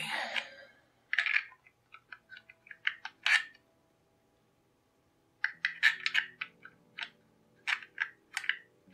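Small clicks and clacks of a 3D-printed plastic puzzle being handled, with a thin metal pin tapping and sliding against the plastic parts. The clicks come in a cluster over the first few seconds and again from about five and a half seconds in, with a short lull between.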